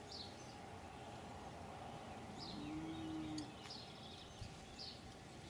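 Faint background of birds chirping: a few short, high, falling chirps scattered through, with a brief steady low tone near the middle.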